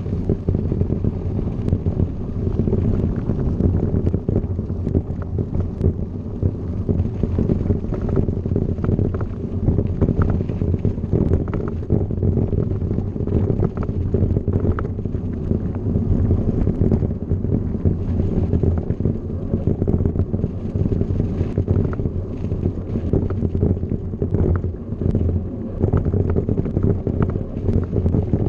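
Wind buffeting the microphone of a camera riding on a mountain bike descending a gravel road, over a steady low rumble of tyres on loose gravel. Small rattles and clicks from the bike and stones run through it.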